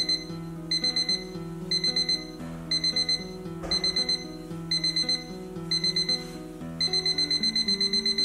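Braun BC22 analog alarm clock's electronic alarm beeping, high-pitched, in groups of four quick beeps about once a second. Near the end the beeps run together into a faster, unbroken stream.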